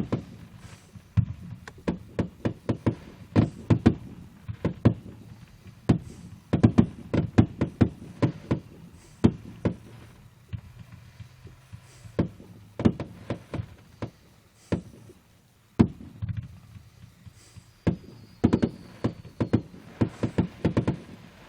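Fireworks going off: dull bangs in quick irregular volleys of several a second, with short pauses between the volleys.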